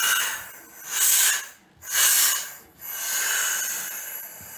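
Compressed air hissing from an SCBA cylinder fill station's regulator as the fill pressure is set to 2216 PSI, in several surges that stop and start abruptly.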